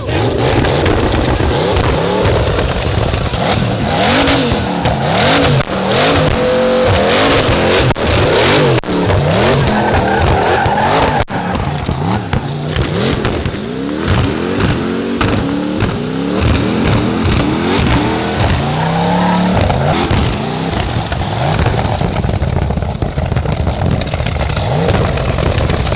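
Twin-turbo Chevrolet LSX 376 V8 in a Nissan Silvia S14 driven hard, revving up and down again and again. Sharp cracks come from the exhaust as it spits flames, most of them in a burst a few seconds in.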